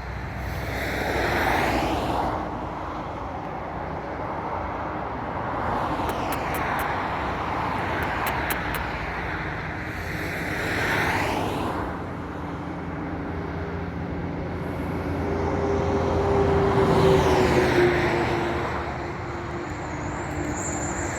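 Road traffic: several vehicles pass one after another over a steady low rumble, each swelling and fading away. One near the end carries an engine tone that falls in pitch as it goes by.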